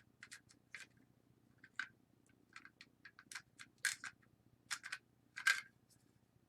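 Small plastic and metal parts of a disassembled Nikon 18-55 mm lens clicking and ticking irregularly as they are handled, with a couple of louder clicks about four and five and a half seconds in, over a faint steady low hum.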